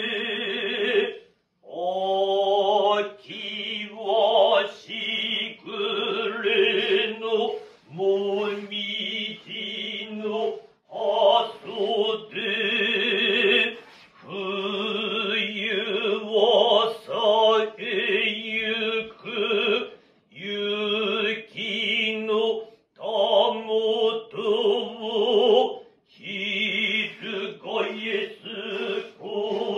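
Kanze-school Noh chanting (utai) by a male voice: slow, drawn-out sung phrases with a heavy vibrato-like waver, broken by short pauses for breath.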